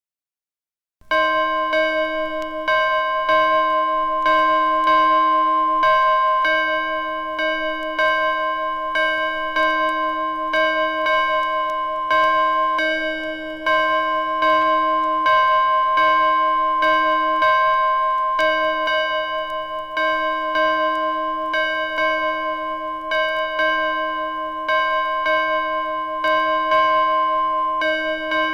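A bell struck over and over, roughly once or twice a second. Each strike renews the same ringing tone, which keeps sounding between strikes. It starts suddenly about a second in.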